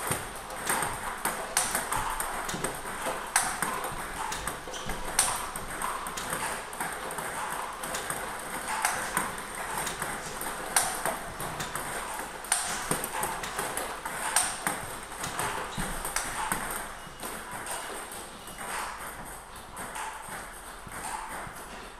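Table tennis practice against a ball machine: a steady run of sharp plastic clicks as backspin balls are struck with a paddle faced with Nittaku Kyohyo Pro 3 Turbo Blue rubber, bounce on the table and drop into the catch net, about one stroke a second. The clicks thin out near the end.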